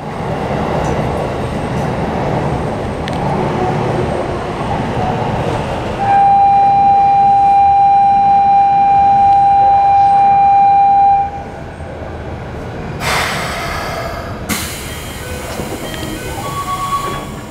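Busy platform noise through the open doors of a Keikyu 1500 series train. A station departure buzzer then sounds one loud, steady tone for about five seconds and stops abruptly. A few seconds later comes a hiss of air as the doors begin to close.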